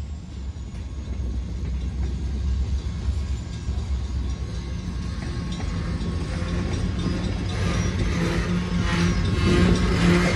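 Freight cars of a Great Lakes Central Railroad train rolling past close by: a steady rumble of steel wheels on rail. It grows louder in the last few seconds, with repeated clicking as wheels pass over the rail joints.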